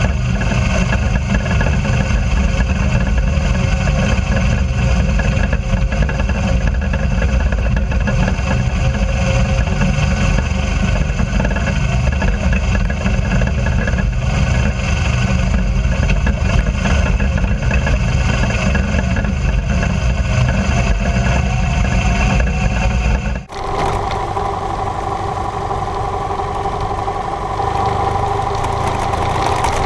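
BMW GS adventure motorcycle engine running under way on a gravel track, heard through a camera mounted on the bike, with a heavy low rumble. About three-quarters through the sound cuts off abruptly and resumes with a steadier, more even engine note.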